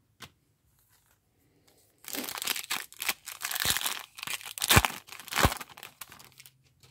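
Foil wrapper of a 2018 Topps Series 1 baseball card pack crinkling and tearing as it is pulled open by hand. It starts about two seconds in, with a few sharp snaps among the crackle.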